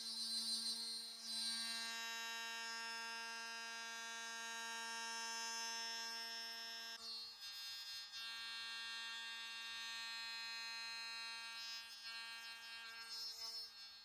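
Hand router mounted on a lathe, its motor running at speed with a steady high-pitched whine while its cutter mills a slot in an aluminium part. The tone shifts slightly about halfway through.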